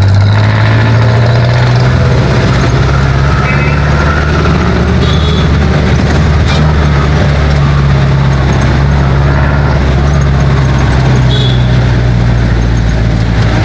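Jeepney's diesel engine running under way, heard loud from inside the open passenger cabin: a steady low drone whose pitch shifts a little a few times, with road noise and rattles over it.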